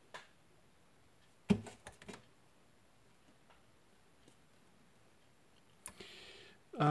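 A single sharp knock about a second and a half in, then a few light clicks, from computer hardware being handled. A steady low voiced hum starts at the very end.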